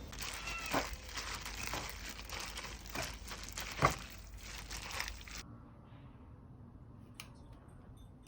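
Crinkly material being handled close by: rustling and crinkling with several sharp clicks, stopping abruptly about five seconds in, after which only faint room noise and a couple of small ticks remain.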